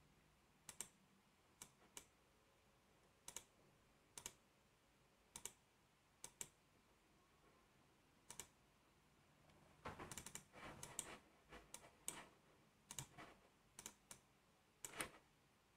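Faint clicks of a computer mouse, scattered one at a time at first, then coming in a quicker run from about ten seconds in.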